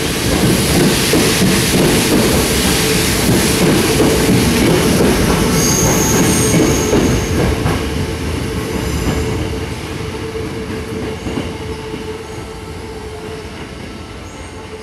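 Sanyo Electric Railway electric train running past and pulling away, its wheels clattering on the rails under a steady humming tone. A brief high squeal comes about six seconds in, and from then on the sound fades as the train draws off.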